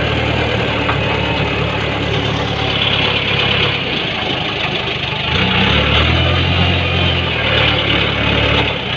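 JCB backhoe loader's diesel engine running close up while working the front bucket. Its note grows louder and deeper for about two seconds past the middle, then eases back.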